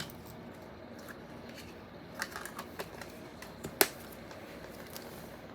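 Handling noises in a small room: a few light clicks a little over two seconds in, then one sharp, loud click nearly four seconds in.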